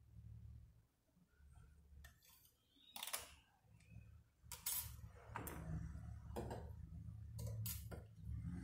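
A few sharp clicks and light knocks of small hard objects being handled, over a low steady hum.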